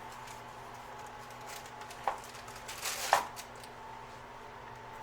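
Washi tape and paper being handled on a desk: a sharp click about two seconds in, then a short scratchy rasp that ends in a snap about a second later, over a faint steady hum.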